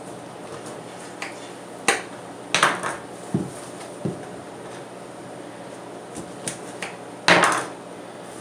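Scattered knocks and clinks of kitchen work: a knife striking a cutting board as limes are cut, with utensils and dishes clattering. The loudest clatter comes about seven seconds in.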